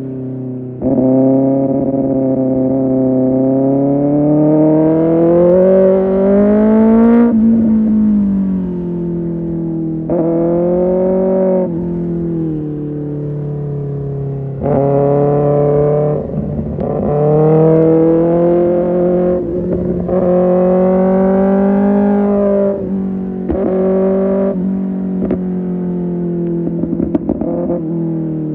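Kawasaki Ninja ZX-6R's inline-four engine through an Arrow Pro Race exhaust, being ridden hard with the throttle opened and closed again and again. The pitch climbs in a long pull and then drops sharply, followed by a string of shorter revs up and down. Brief crackling comes near the end.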